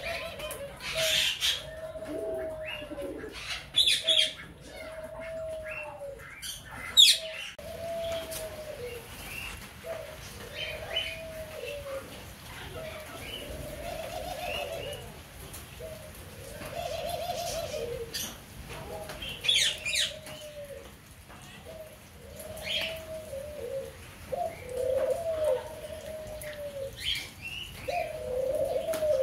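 Caged pigeons cooing over and over, a cooing call every second or two, with a few sharp clatters among them, the loudest about seven seconds in.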